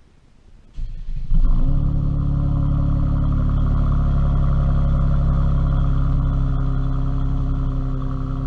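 Mercedes-Benz C400's twin-turbo V6 starting about a second in: a brief crank, then it catches with a short flare of revs and settles into a steady idle.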